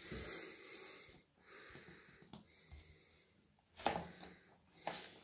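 Faint breathing close to the microphone: two hissy breaths, the first about a second long. After them come two soft knocks, about four and five seconds in, from vinyl records in paper sleeves being handled and set on the table.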